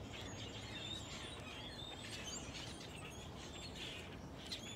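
Small birds chirping faintly, short scattered calls over steady outdoor background noise.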